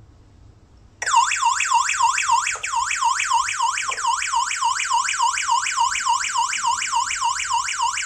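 The security alarm hub's built-in siren going off in a fast electronic warble, about four sweeps a second, starting about a second in. Opening the armed zone-one door sensor has triggered it: an intrusion alarm.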